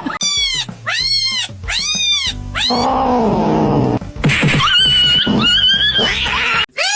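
A cat meowing: three short rising-and-falling meows in quick succession, then a lower call, then a longer drawn-out yowl.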